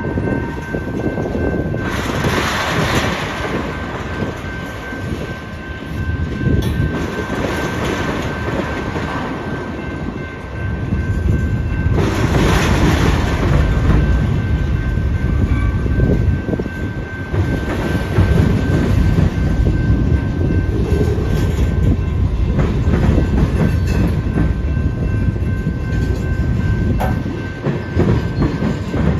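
Union Pacific freight train rolling past, with a steady low rumble and the clatter of wheels over the rails. It swells louder about two seconds in and again about twelve seconds in.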